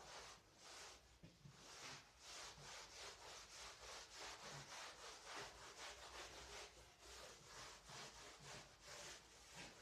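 Faint, rhythmic back-and-forth rubbing, about three to four strokes a second, going on steadily throughout.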